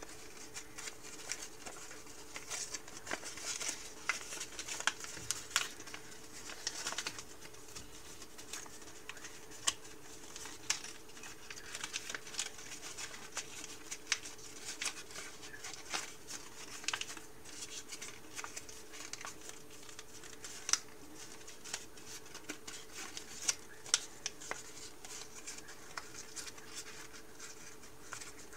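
A sheet of paper being folded and creased by hand into an origami model: irregular crisp rustles, crackles and clicks of the paper as it is pressed and shaped. A faint steady hum runs underneath.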